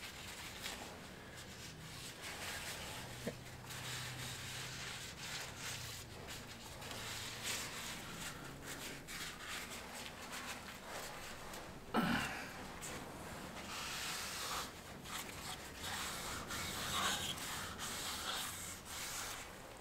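Oil-wet pine base rubbed back and forth over a sheet of sandpaper on a wooden workbench, an uneven scratchy scraping. One brief louder sound comes about twelve seconds in.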